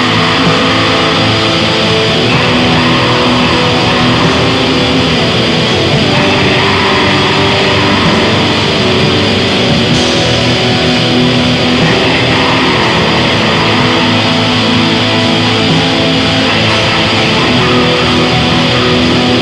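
Raw black metal: distorted electric guitar over bass and drums in a dense, loud, unbroken wall of sound.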